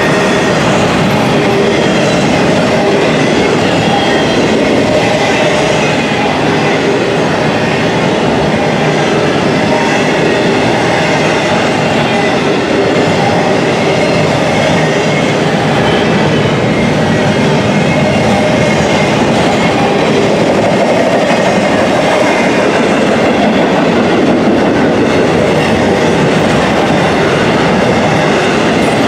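Intermodal container train's freight cars rolling past at speed: a loud, steady rumble and rattle of steel wheels on rail, with some faint high ringing tones from the wheels.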